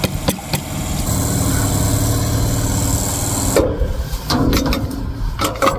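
Steady motor hum with a hiss over it, which cuts off abruptly about three and a half seconds in, followed by a few light clicks and knocks.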